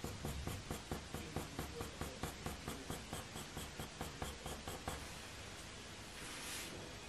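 Faber-Castell Polychromos coloured pencil scratching on hot-press watercolour paper in quick, short fur strokes, about four a second. It stops about five seconds in, with a brief soft swish about a second later.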